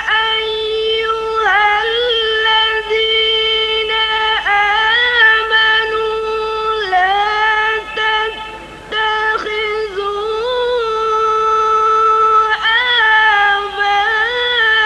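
A young girl reciting the Quran in the melodic tajweed style: long held notes with ornamented turns between them, and a short break for breath about eight seconds in.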